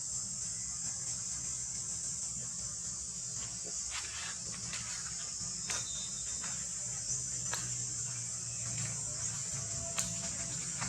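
Steady high-pitched insect drone, with a low steady hum underneath and a few sharp clicks scattered through, the sharpest about ten seconds in.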